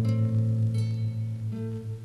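Background music on a plucked acoustic guitar: a note is plucked at the start and another just under a second in, over a low note ringing on.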